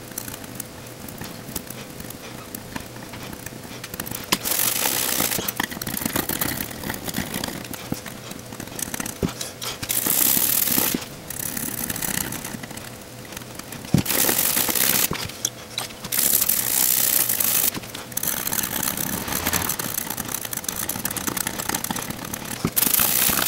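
Scrubbing and scratching on a circuit board in repeated rough bouts of about a second each, with a few sharp clicks between them: a TV mainboard being cleaned of corrosion left by moisture.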